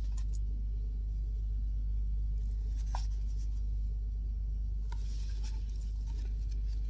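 Room tone: a steady low hum with a faint click about three seconds in and a few more about five seconds in.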